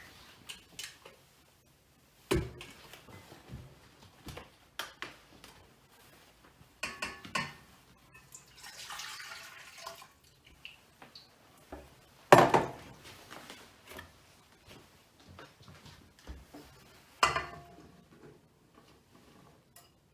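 Milk and flour going into a mixing bowl: a pour of liquid near the middle, among light clinks and three loud knocks of a bowl and containers on the worktop.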